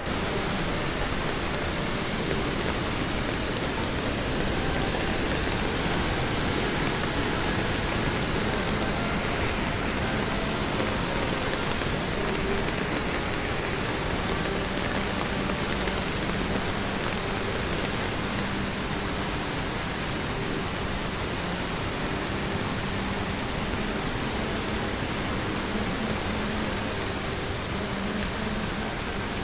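Steady rushing of a flash-flood torrent of muddy water, a continuous even noise of floodwater from a cloudburst.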